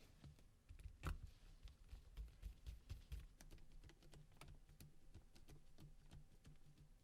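Faint, irregular clicks and ticks of a small screwdriver driving Torx Plus size 5 screws into a mobile phone's cover, with one sharper click about a second in.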